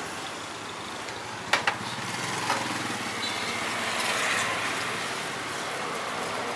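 Passing street traffic, motorbike and engine noise, swelling a little about four seconds in. A sharp knock comes about a second and a half in, and a smaller click a second later.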